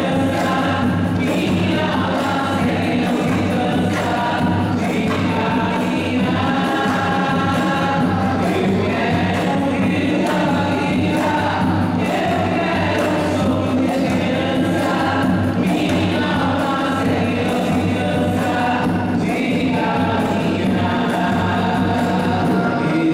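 A church choir of mixed voices singing a hymn over sustained keyboard accompaniment.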